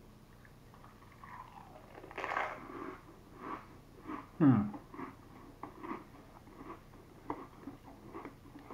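Pringles potato crisps being bitten and chewed: irregular crunches and crackles of chewing, with a louder noisy burst about two seconds in. About halfway, a brief falling hum-like voice sound from the eater is the loudest moment.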